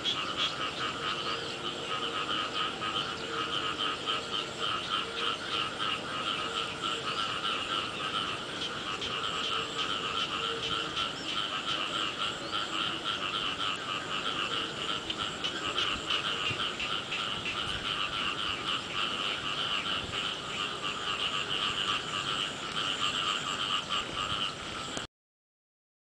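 Dense chorus of many frogs calling together: a steady mass of rapid, pulsing croaks at a higher and a lower pitch. It cuts off suddenly near the end.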